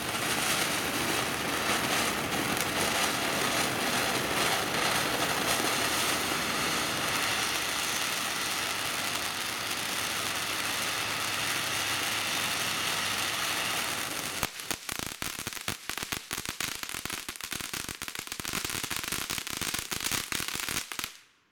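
Phantom Fireworks Thunder Fest ground fountain burning: a steady loud hiss of spraying sparks for about fourteen seconds. It then changes to a dense crackle of rapid pops for the last several seconds and cuts off.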